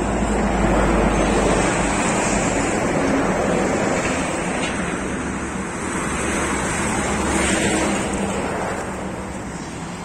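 Steady rushing of a river in flood, with wind rumbling on the microphone at the start and again in the middle.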